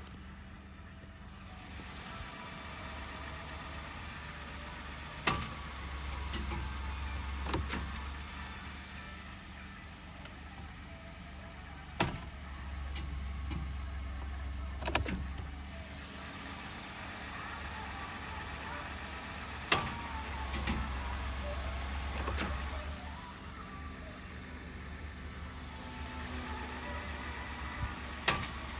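A 2019 Ford F-150 giving sharp clicks or bangs over a low steady drone. The clicks come about seven times, the loudest roughly every seven to eight seconds, each followed by a softer click a few seconds later. This is a comparison truck whose noise counts as normal vehicle operation.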